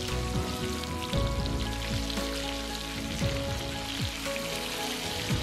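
Semolina-coated whole fish shallow-frying in oil on a flat tawa: a steady crackling sizzle. Background music runs underneath.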